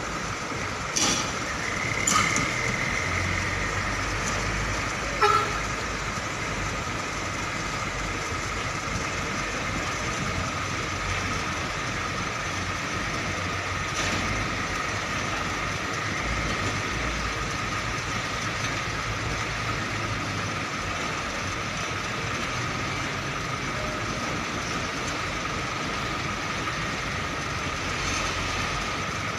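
Heavy diesel trucks running in a yard, a low steady engine rumble, with a few short loud sounds in the first few seconds, the last a brief horn toot about five seconds in.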